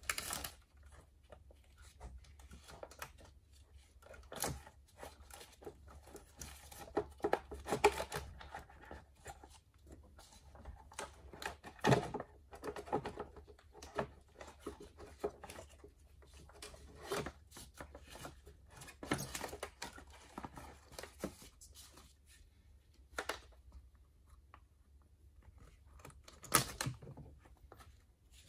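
Scattered clicks, knocks and rattles of hand tools and parts being handled during work on a car engine, irregular, with a few louder knocks, over a steady low hum.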